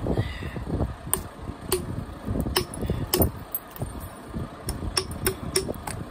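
Flintknapping: a handheld billet striking the edge of a stone preform in percussion flaking, giving about a dozen sharp, irregularly spaced clicks with duller knocks between them.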